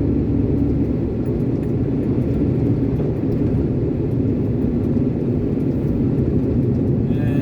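Iveco concrete mixer lorry's diesel engine running steadily as the truck drives along, with a constant low hum and road noise.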